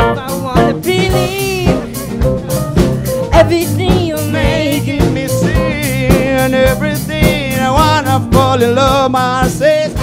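Live band playing a song: a male voice sings a wavering melody over electric guitars, bass guitar and a Tama drum kit keeping a steady beat.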